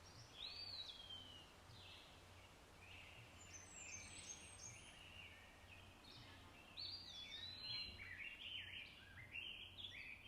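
Faint birdsong: several birds chirping and whistling in short, overlapping rising and falling phrases, busier in the second half, over a faint steady low hum.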